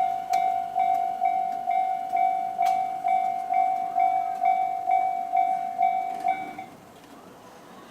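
Japanese railway level-crossing warning bell ringing in even dings, about two a second, then stopping about six and a half seconds in. A faint rising whine follows near the end.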